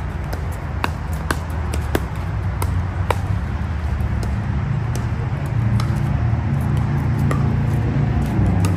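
Pickleball paddles striking a plastic pickleball: a string of sharp pops about half a second apart at first, thinning out after a few seconds. A steady low rumble lies underneath.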